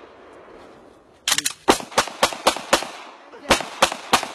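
Handgun fired in quick succession, starting about a second in: about six shots roughly a quarter second apart, a short pause, then three or four more, each with a short echo.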